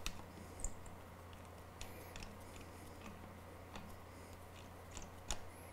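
A few faint, scattered metal clicks and ticks, the sharpest one near the end, as a 20K pressure gauge is turned by hand and threaded down into its gland nut fitting on a high-pressure pump manifold.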